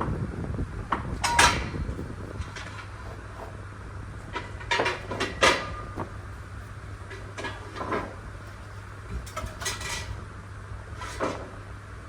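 Irregular clinks and clatters of hard objects being handled and set down, a few of them ringing briefly, over a steady low hum.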